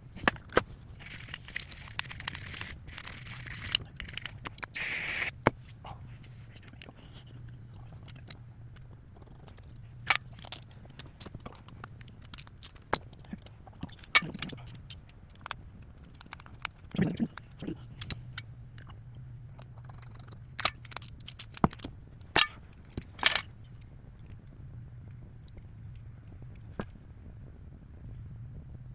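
Workshop handling sounds: a steady hiss for about the first five seconds, then scattered clicks, clinks and knocks of tools and small metal parts being handled on a generator.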